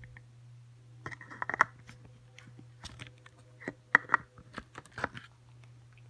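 Parts of a Tacamo Blizzard paintball marker being handled and fitted together by hand: a scatter of clicks, scrapes and rattles, in clusters about a second in and again around four and five seconds in.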